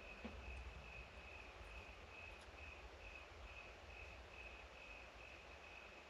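Crickets chirping faintly in a steady, even rhythm over a low background rumble.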